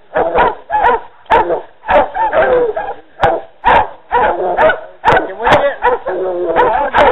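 Hog dogs baying a cornered wild hog: a steady run of loud, repeated barks, about two to three a second.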